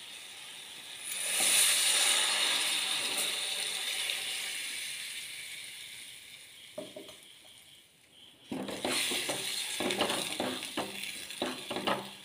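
Water poured into a steel pot of chilli powder and turmeric fried in oil hits the hot masala with a sudden sizzle about a second in, which fades away over several seconds. Near the end a wooden spatula stirs and scrapes against the steel pot in quick strokes.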